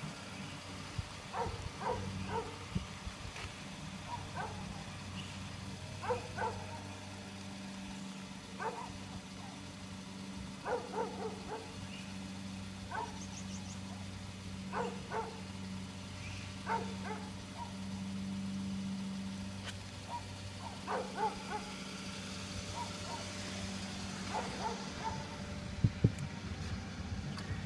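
A dog barks repeatedly, in short single barks and quick runs every second or two, over a steady low hum. Two sharp knocks near the end are the loudest sounds.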